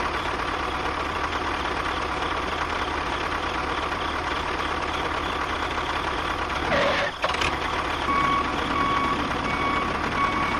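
A motor runs steadily with a rough, rattly drone that breaks off briefly past the middle. From about eight seconds a vehicle reversing alarm beeps, a little under two beeps a second.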